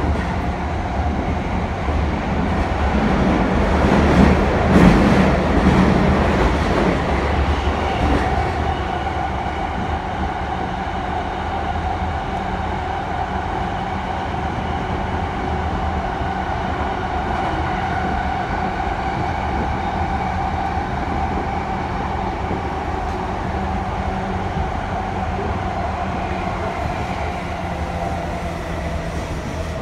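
Cabin running noise of an E233 series 2000-subseries commuter train with Mitsubishi IGBT-VVVF inverter drive, running through a subway tunnel: a steady rumble of wheels on rail with a held whine from the traction motors, swelling louder for a few seconds a few seconds in.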